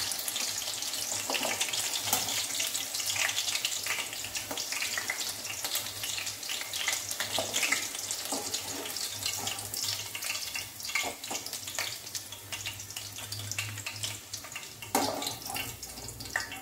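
Coated chicken pieces deep-frying in hot oil in a kadai: a steady crackling sizzle, with a brief clatter near the end.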